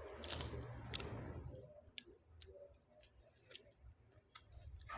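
Quiet eating sounds: scattered small clicks of chewing and of a spoon on the plate, after a short rush of noise in the first second or so.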